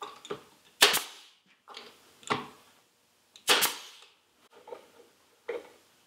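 Pneumatic nail gun firing nails to tack a wooden cleat onto the side of a wooden hive box: two sharp shots about three seconds apart, with lighter knocks and clicks between them.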